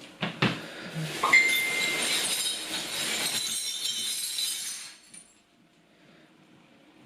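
Glass bowl striking a hard surface: a few sharp knocks and a ringing clink, then glass breaking and shards clattering and tinkling for about three seconds, dying away about five seconds in.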